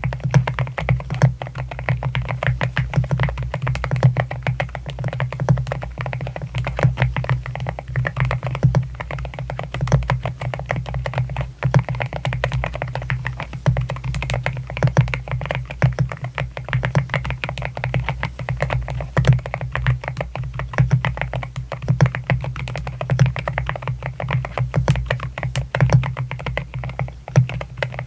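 Continuous fast typing on an AKKO MU01 wooden-housed mechanical keyboard with linear rosewood switches: a dense run of soft keystroke clacks. Background music plays underneath.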